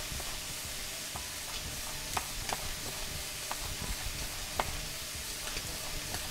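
Shrimp frying in olive oil in a pan: a steady sizzle with scattered pops and ticks. Along with it comes the scrape of a zucchini being pushed over a mandoline julienne slicer.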